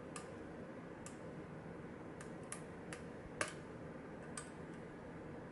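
Small, sharp metallic clicks of a lock pick working the pins of a pin tumbler lock under tension, about eight irregular clicks with the loudest about three and a half seconds in, over a faint steady hiss.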